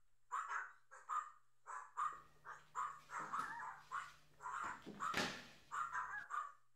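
A rapid series of short, harsh animal calls, about three a second, that stops shortly before the end.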